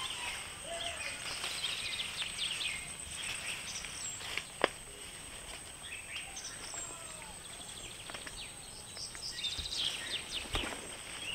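Outdoor garden ambience with birds chirping intermittently and a steady high-pitched whine. A single sharp snap comes about four and a half seconds in, and there is rustling near the end.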